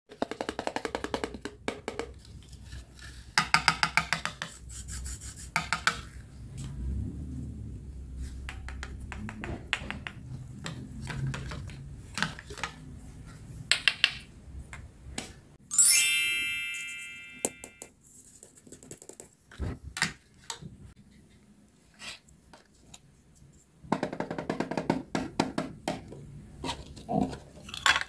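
Hard plastic toy kitchen pieces being handled: a run of clicks, taps and rubbing. About sixteen seconds in, one ringing ping that fades over a second or two.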